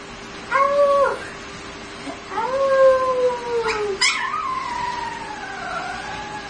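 Puppy howling: a short howl, then a longer one that sags slowly in pitch, then a quieter wavering howl that dips and rises again near the end.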